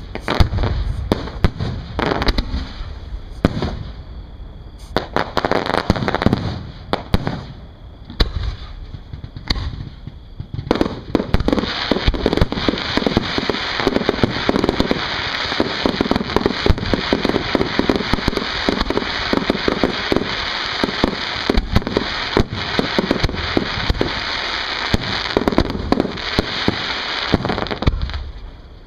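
Aerial fireworks shells bursting: separate booms for about the first ten seconds, then a dense, continuous barrage of rapid bangs and crackling that runs on until just before the end.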